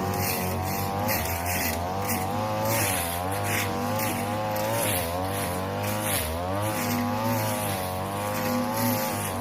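A 42cc two-stroke brush cutter running at high revs, its pitch wavering up and down as the blade takes load in tall grass. Irregular swishes of grass being cut come through over the engine.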